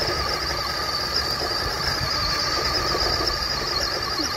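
Traxxas Rustler VXL's Velineon brushless electric motor running with a steady high whine as the truck spins donuts, its short-course tyres churning through sand.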